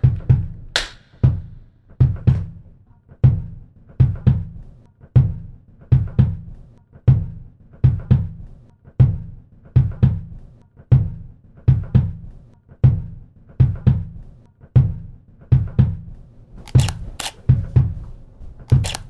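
Rhythmic percussive beat: a low drum-like thump about once a second with lighter hits and ticks between, steady throughout. Near the end, a few sharp high clicks join the beat.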